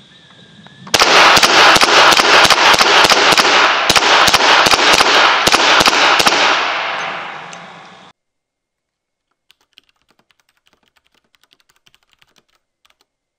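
Marlin Model 60 .22LR semi-automatic rifle fired in a rapid string, several shots a second for about five seconds, then the sound fades out.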